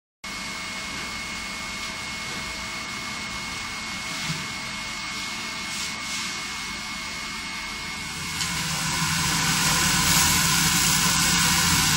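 Pulsed laser cleaner ablating oxide and heat tint from a stainless steel weld seam: a steady hiss with a faint high tone through it, growing louder about eight and a half seconds in.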